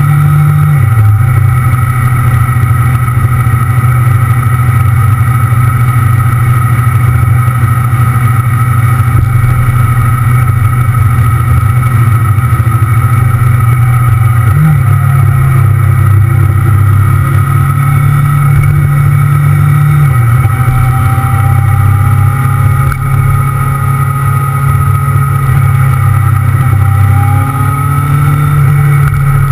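Motorcycle engine running steadily under way at cruising speed, its note shifting briefly three times: about a second in, about halfway through, and about two-thirds of the way through.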